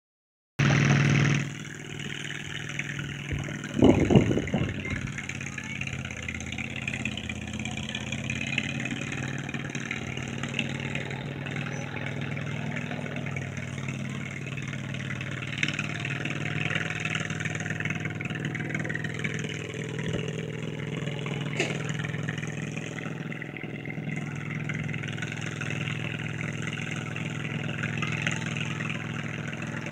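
Garden pulling tractor engine running steadily, with a brief loud burst about four seconds in.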